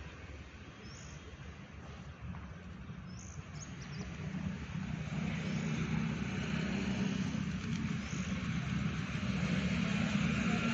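Low steady rumble of a motor vehicle's engine, growing louder through the second half, with a few faint high chirps.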